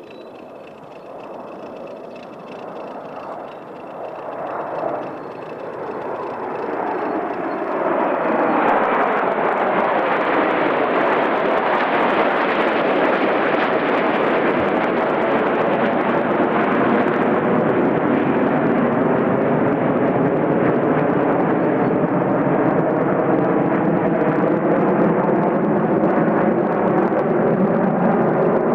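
Jet engines of a close formation of MiG-29 and Su-27 fighter jets flying over. The noise grows louder over about eight seconds, then holds as a steady, loud rushing jet noise with slowly sliding tones in it.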